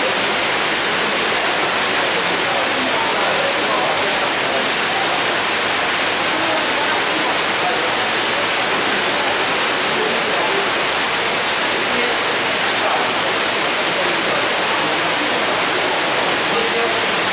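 Steady rushing hiss of running or falling water, even and unbroken, with a crowd murmuring faintly underneath.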